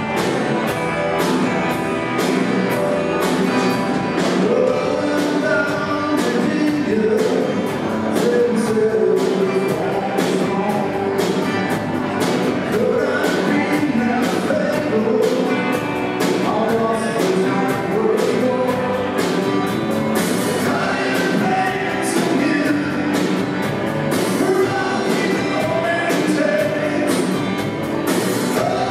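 Live rock band playing: a male lead vocal over strummed acoustic guitar, electric guitar and a drum kit keeping a steady beat, with the singing coming in a few seconds in.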